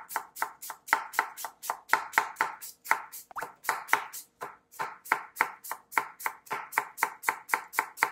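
Chef's knife slicing a red onion into thin feather-cut slices on a wooden cutting board: a steady run of about four cuts a second, each a crisp crunch ending in a tap of the blade on the board.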